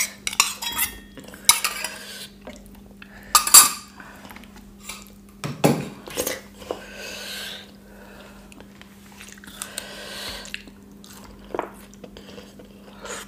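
Stainless-steel bowl and utensils clinking against plates at a meal, scattered clinks with the loudest about three and a half seconds in, between softer squishing of food being mixed and eaten by hand. A faint steady low hum runs underneath.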